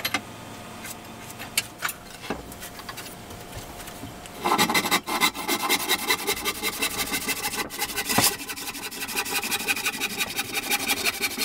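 Handsaw cutting through a pine 2x4 in steady, rhythmic back-and-forth strokes, starting about four seconds in. Before that, quieter scratching and a few light knocks as the board is marked.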